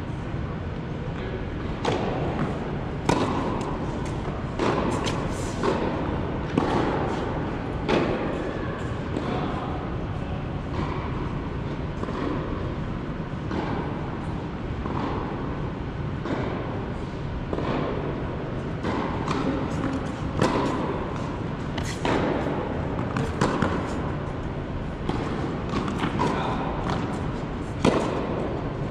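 Tennis rally on an indoor hard court: racquets striking the ball and the ball bouncing, sharp hits coming irregularly every second or two and echoing in a large hall, over a steady low hum.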